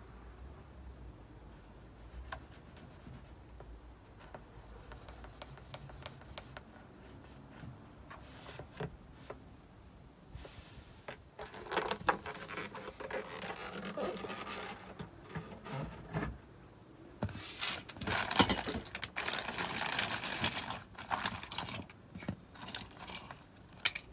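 Handling noise from a camper table being fitted to a van's carpeted rear door: scattered light clicks and taps at first, then from about halfway through louder, irregular scraping, rubbing and knocks as the table is lifted and pushed against the door.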